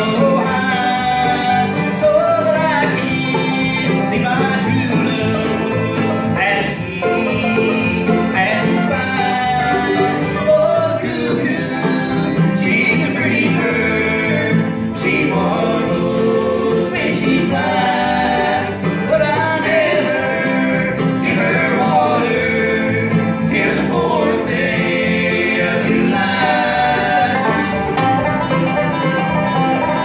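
A bluegrass band playing live, with banjo, acoustic guitars and mandolin, and a man singing lead over them.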